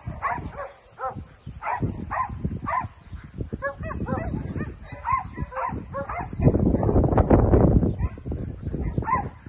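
Dogs barking repeatedly in short, quick barks, several a second at times. A loud rushing noise covers about two seconds in the second half.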